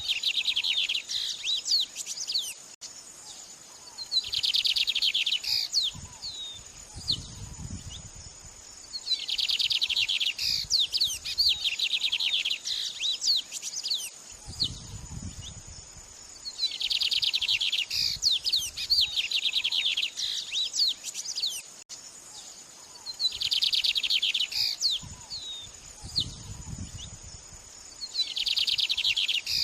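Recorded songbird song: dense, rapid trilled bursts about a second and a half long, repeating every six to seven seconds, with quicker scattered chirps between them. A steady high insect-like whine runs underneath, and three soft low rumbles come in.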